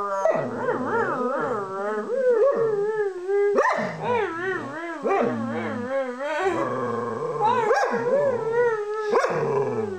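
A pet dog howling in a long, wavering 'song' with several breaths between phrases, while a person's lower voice howls along with her.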